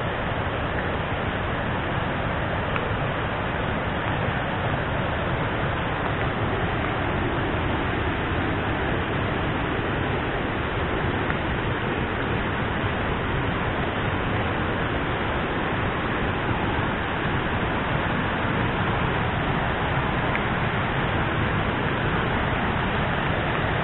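Steady, even rushing of rain and falling water from the Cikaso waterfall ahead, with no breaks or distinct events.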